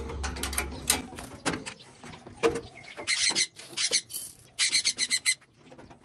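Metal aviary cage door and latch being handled with scattered clicks and rattles, while parrots give short repeated calls from about halfway through.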